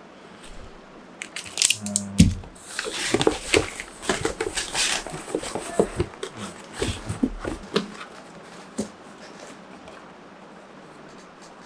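Goods being unpacked from a cardboard delivery box: packaging rustling and crinkling, with plastic bottles knocking as they are lifted out and set down. The handling is busiest a few seconds in and dies away near the end.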